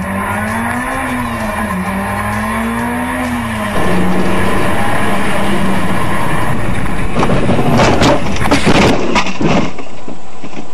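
Car engine heard from on board, revs rising and falling as it is driven hard through the bends. About four seconds in, a louder harsh rushing noise of tyres skidding covers it. Between about eight and nine and a half seconds in comes a cluster of sharp cracks and thumps as the car crashes off the road.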